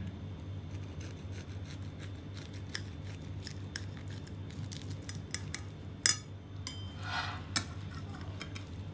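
Light clicks and taps of kitchen utensils against dishes over a steady low hum, with a sharp clack about six seconds in and a short scrape just after it.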